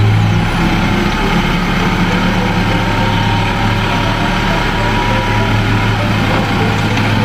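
Truck engine idling with a steady low hum, as a sound effect that starts and stops abruptly.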